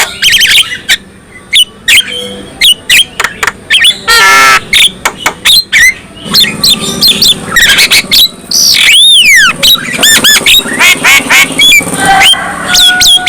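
Javan myna (jalak kebo) singing a rapid, varied song of harsh squawks, clicks and short whistles. A buzzy rattle comes about four seconds in, and a long arched whistle, rising then falling, around the middle.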